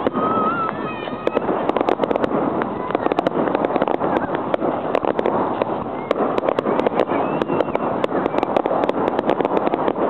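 Fireworks display: aerial shells bursting overhead in a dense, continuous crackle of many rapid pops and bangs.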